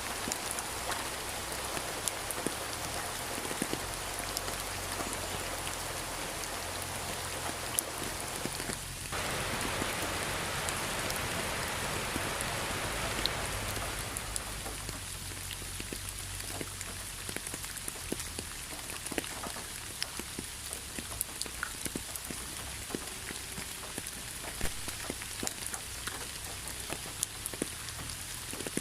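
Rain falling steadily, with many separate drops ticking on a surface. It gets heavier from about nine seconds in and eases off again about five seconds later, leaving lighter rain with more distinct drips.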